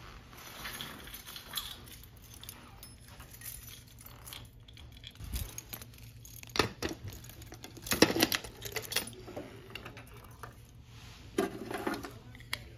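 Keys jangling and a key working the lock of a metal post office box, with a few sharp metallic clicks and rattles: one a little past halfway, a louder one about two-thirds of the way in, and another near the end.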